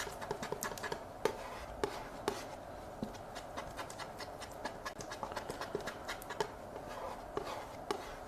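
Palette knife mixing oil paint on a palette: irregular sharp taps of the blade, several a second, with scraping between them.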